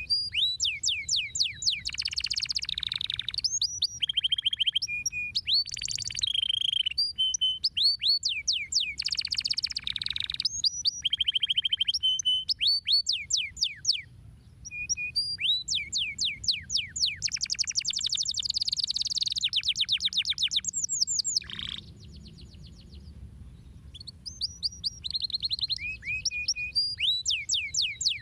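Domestic canary singing a long song of rapid trills, each a quick run of repeated falling notes, switching to a new phrase every second or two. There is a brief break about halfway through and a pause of about two seconds later on.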